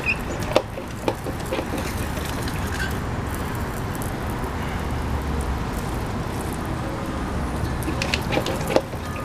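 Handheld trigger spray bottle spritzing water onto a tire: short sharp spray sounds about half a second and a second in, and several more near the end, over a steady low background rumble.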